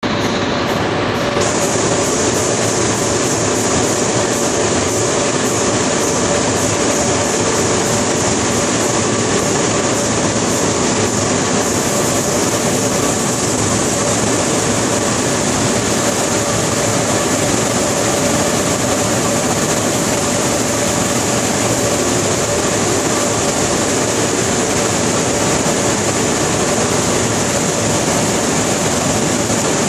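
Automatic tunnel car wash running: tall spinning brushes scrubbing the sides of a minivan amid water spray, a loud, steady din with a faint hum from the machinery.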